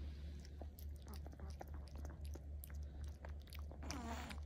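A long-haired chihuahua licking and chewing banana off a metal spoon: many small quick wet clicks and smacks over a steady low hum, with a brief louder rasp near the end.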